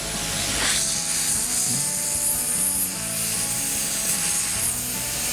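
Background music: sustained chords that change about once a second, over a steady hiss.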